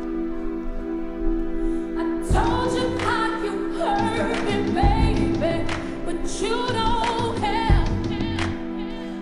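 Music: held chords, joined about two seconds in by a singing voice and heavy low drum hits.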